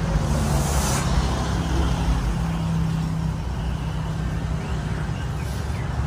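Steady low rumble of motor-vehicle traffic, with a brief hiss about half a second in.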